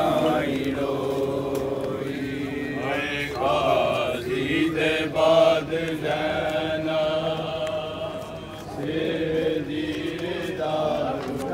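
Men's voices chanting a slow mourning lament (noha) together, long drawn-out sung phrases one after another.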